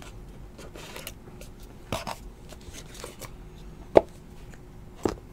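Handling of a cardboard trading-card box and the cards inside it: soft rubbing and sliding, with a few light taps and one sharp click about four seconds in.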